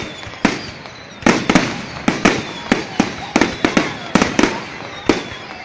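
Aerial fireworks bursting in quick, irregular succession: a dozen or more sharp bangs, often two or three a second, some in close pairs, over a continuous background rumble of the display.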